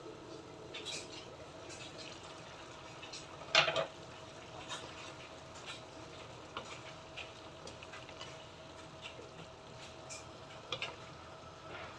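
Chicken adobo simmering in a nonstick wok, the sauce bubbling with scattered small pops. A single loud clank about three and a half seconds in as the glass lid comes off, then a wooden spatula stirring the chicken and potatoes.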